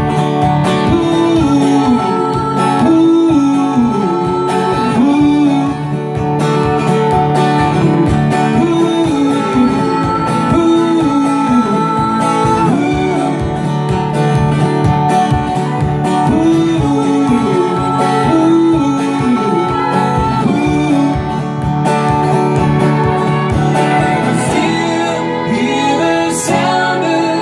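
Instrumental break in a song: guitars over a steady beat, with a melodic lead line that bends and repeats every few seconds.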